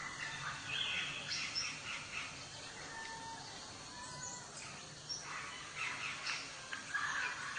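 A bird calling in short, scattered chirps and squeaky notes, with a brief whistled glide about a second and a half in and busier calling from about five seconds on.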